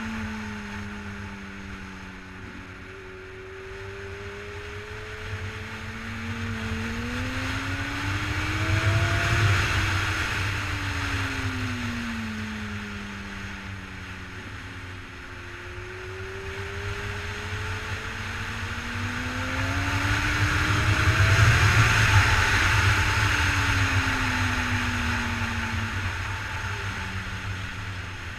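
2007 Honda CBR1000RR Fireblade's inline-four engine on track, its note climbing as the bike accelerates and falling back as it slows, twice over. Wind and road rush over the onboard microphone rises and falls with it.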